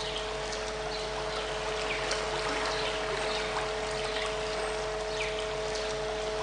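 Two steady pure tones held together, one a little below and one a little above 500 Hz, laid over the sound of a flowing stream, with a low steady hum underneath.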